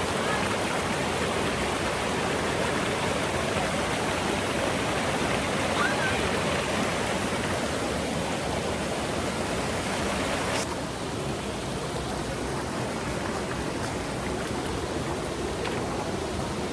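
Steady rush of a stream and small waterfall pouring into a rock pool, turning a little quieter and duller about two-thirds through.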